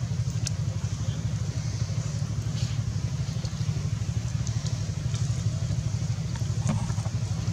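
Steady low rumble of an idling engine, pulsing quickly and evenly, with a few faint clicks above it.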